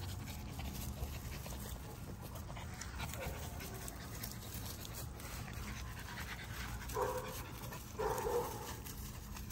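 A French bulldog panting steadily, tired from the heat. Two short, pitched dog sounds come out louder, about seven and eight seconds in, as the two dogs meet nose to nose.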